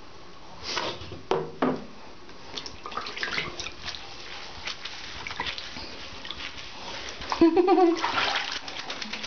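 Water splashing and sloshing in a bathtub as a small wet dog is washed by hand, in irregular splashes and drips. About three quarters of the way through there is a brief pitched vocal sound, followed by a louder stretch of splashing.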